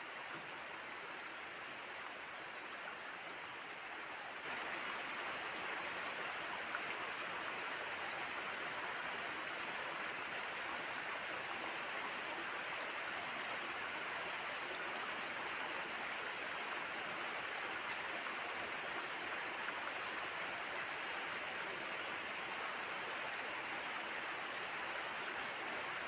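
A steady rushing hiss of outdoor background noise, a little louder from about four and a half seconds in.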